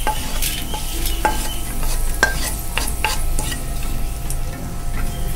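Wooden spatula scraping fried neem flowers out of a nonstick pan onto a steel plate, with several sharp knocks of the spatula against the pan. The hot ghee is still sizzling.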